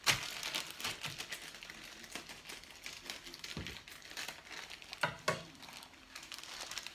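Plastic bag of dried pinto beans crinkling as it is handled, with many small crackly clicks and two sharper knocks about five seconds in.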